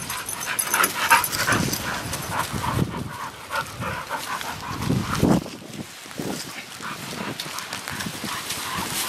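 A bull terrier and another dog playing, their dog sounds coming in short, irregular bursts.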